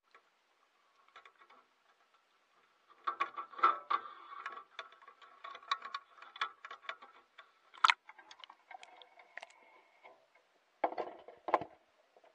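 Irregular light clicks, ticks and small watery splashes around floating logs, with a heavier, deeper splash near the end as a ball of fishing ground bait drops into the water.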